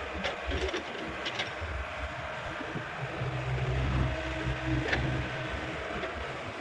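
Hyundai 85A excavator's diesel engine running steadily, with a humming tone that comes and goes and a few sharp metallic clanks, several in the first second and a half and one near five seconds.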